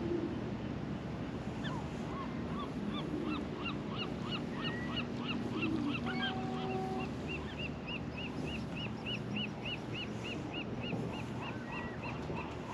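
Gull calling over and over: a long run of short, rising-and-falling calls, about three a second, over a low steady hum.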